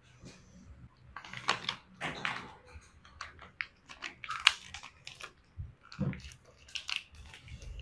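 Close-up table sounds of a meal: fresh lettuce and rice paper crunching and crinkling as a roll is wrapped by hand, with sharp clicks of a metal ladle against a bowl. The sounds come in irregular bursts.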